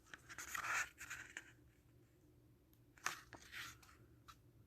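Short rustles and crinkles of paper and plastic as a music album's packaging and contents are handled: one cluster about a second in and another about three seconds in.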